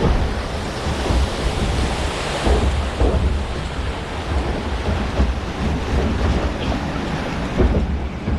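Steady rushing and splashing of water in a log flume channel, with irregular low rumbles underneath.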